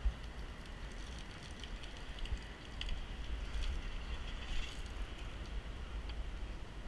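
Water-fed window-cleaning pole at work on the upper windows: a light hiss and crackle of water spray and brush on the glass over a steady low rumble, with a brief louder patch of spatter a little past halfway.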